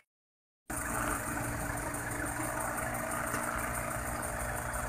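A motor vehicle engine idling steadily, starting after a short silence less than a second in.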